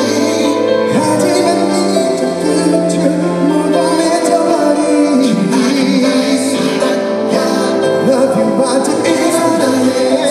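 Live pop song: a male singer singing into a handheld microphone over backing music.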